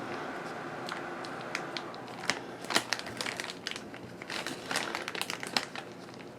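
Packaging crinkling and crackling in irregular bursts as it is handled.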